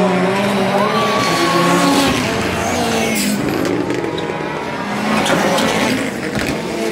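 A pack of rallycross SuperCars racing flat out on a loose-surface straight, engines revving with pitch rising and falling as they close in, over a haze of gravel and tyre noise, with a few sharp cracks.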